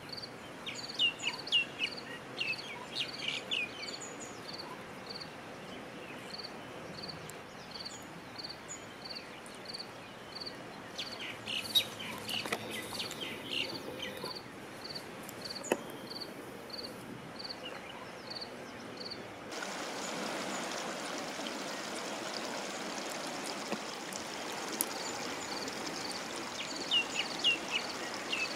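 Outdoor nature ambience: birds calling in short falling chirps, over a high note repeated evenly about one and a half times a second. About two-thirds of the way in, the sound changes abruptly to a steady rushing noise.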